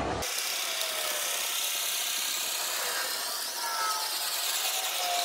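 Handheld propane torch hissing steadily as it post-heats a vinyl boat wrap, with faint whistles that rise and fall in pitch. The sound starts and stops abruptly and has almost no low end.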